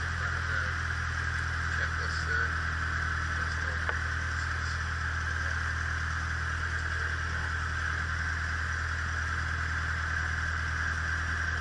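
Cessna 152's four-cylinder Lycoming O-235 engine and propeller idling steadily, heard from inside the cabin.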